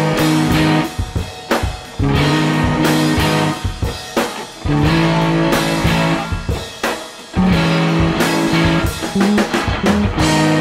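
Instrumental break of a rock song: guitar chords held for a second or two at a time over a drum-kit beat, with no singing.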